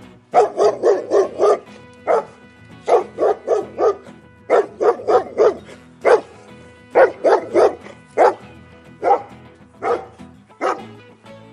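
Dog barking repeatedly, in quick runs of several barks and in single barks, over soft background music.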